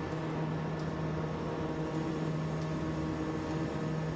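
Steady mechanical hum of a hot-spinning machine turning a red-hot steel scuba cylinder under a gas torch flame, with a constant low drone and even hiss: the open end is being spun closed to form the cylinder's neck.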